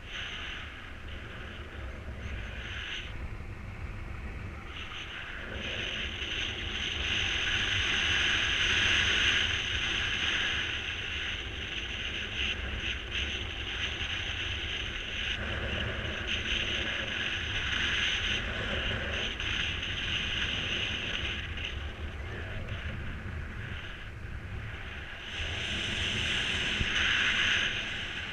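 Wind rushing over the microphone in flight under a mini paraglider wing, a steady rush that swells and eases with gusts and airspeed.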